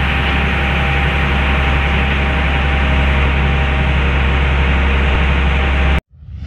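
Boat engine running steadily: a deep, even drone under a constant hiss that cuts off abruptly about six seconds in. Just after, a whoosh sound effect with music starts.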